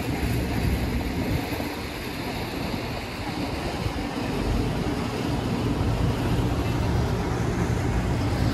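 Steady outdoor noise of wind rumbling on a phone microphone, with a background hum of traffic.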